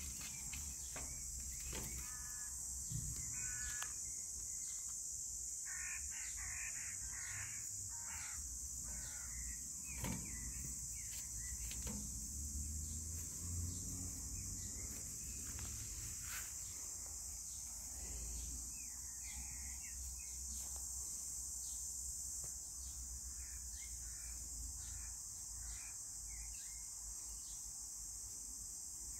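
Steady high-pitched chorus of crickets, with a few short animal calls about two, six and nineteen seconds in, over a low rumble.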